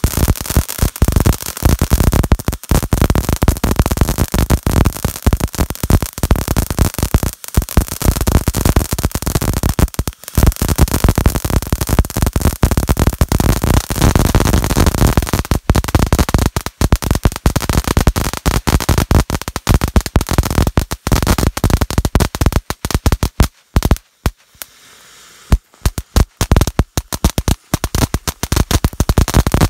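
Blue Fish firework fountain by Boomin' Bulldog spraying sparks with a loud, dense crackle. In the last few seconds the crackle thins into scattered bursts with short gaps as the fountain burns down.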